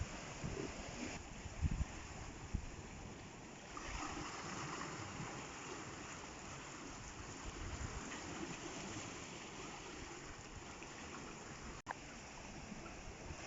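Sea water washing and trickling over rocks in natural ocean pools, a steady wash of surf, with a few low gusts of wind on the microphone about two seconds in.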